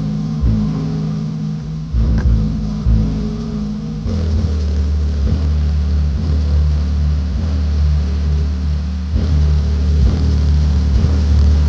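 A hip-hop track played loud through a Hyanka BSC-12 12-inch subwoofer in a car, the deep bass far louder than the rest of the music. From about four seconds in, a long low bass note holds steady.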